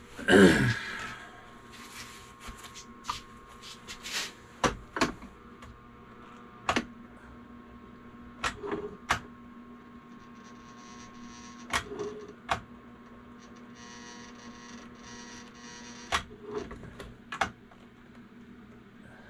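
Sharp metal clicks and taps, scattered a dozen or so times, as molten lead is poured from an electric bottom-pour melting pot into a sinker mold, over a steady hum. A short, loud sound falling in pitch comes right at the start.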